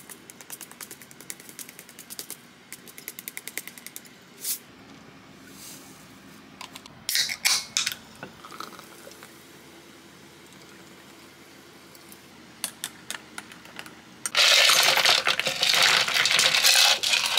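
Sesame seeds shaken from a plastic shaker onto a dish, a fast run of small ticks. About seven seconds in, a few sharp clicks and hisses as a soda can is handled and opened. Near the end comes the loudest sound, a drink poured from a pitcher over ice into a glass, splashing for about three seconds.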